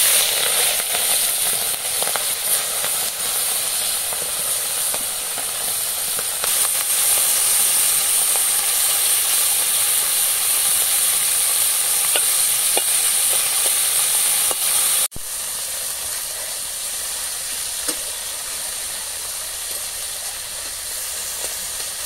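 Small chanda fish frying in hot mustard oil in an aluminium kadai: a loud sizzle that starts the moment the fish go in, with a metal spatula now and then scraping as they are stirred. About two-thirds through, the sizzle drops suddenly to a lower, steadier level.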